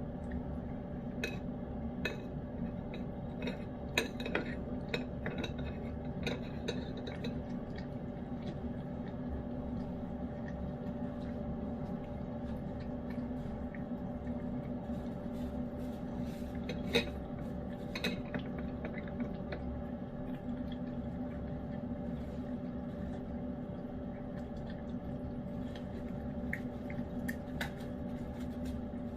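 A cat eating wet food in gravy from a dish: scattered wet chewing and lapping, with small clicks of teeth and tongue against the bowl coming in clusters, over a steady background hum.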